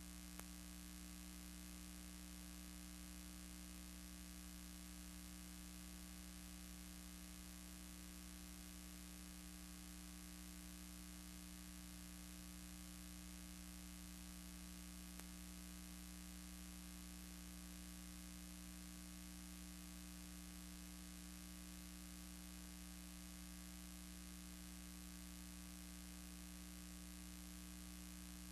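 Steady, low-level electrical mains hum with faint hiss, unchanging throughout. The aircraft itself is not heard.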